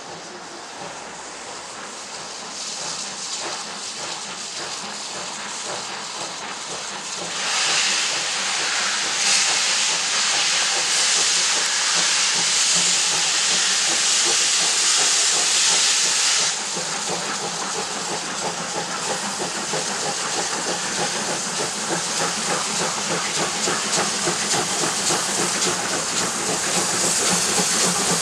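Two steam locomotives double-heading a train as they pull away. A loud hiss of steam from the open cylinder drain cocks comes in about a quarter of the way in and cuts off suddenly a little past the middle. After that the exhaust beats go on quickly, getting louder as the train comes nearer.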